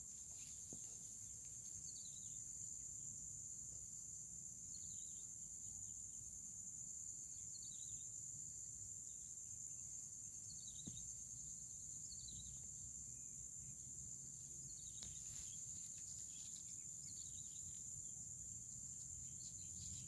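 Steady high-pitched insect chorus, with short falling chirps every two to three seconds over a faint low rumble.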